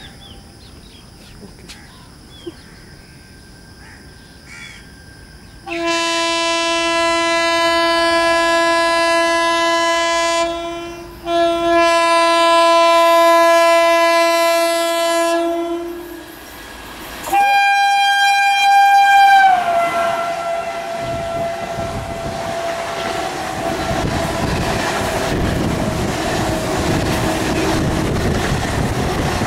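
Indian Railways locomotive horn sounding two long blasts, then a third, higher blast that drops in pitch near its end, followed by the steady rumble and clatter of the train running past.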